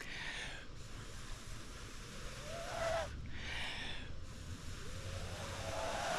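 A person blowing in long breaths into a smouldering tinder bundle to coax a bow-drill ember into flame, a hissing rush of breath about every three seconds.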